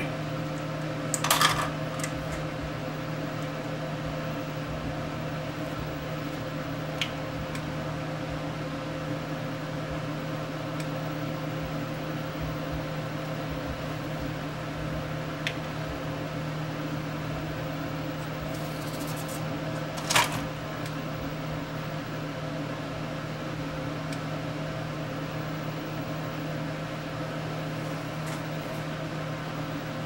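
Steady machine hum throughout, broken by a sharp click about a second in and another about twenty seconds in.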